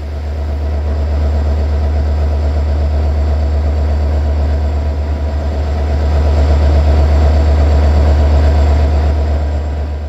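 GM diesel locomotive 64-1000-0 with its engine running hard, a loud, steady, deep rumble with a fluttering note above it.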